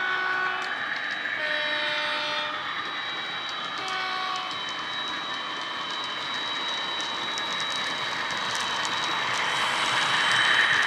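Model locomotive's DCC sound decoder, playing a Class 88 sound file in diesel mode through its small speaker. A two-tone horn sounds in short blasts during the first few seconds, followed by running sound as the train moves. Model wheels click over the rail joints, and it grows louder near the end as the locomotive passes close.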